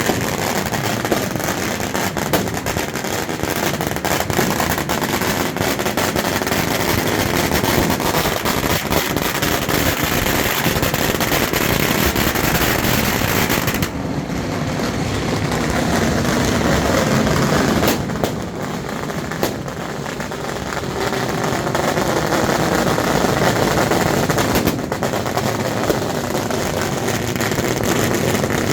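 Firecrackers going off in a dense, rapid crackle, like a string of bangers exploding, with a couple of brief dips about halfway through.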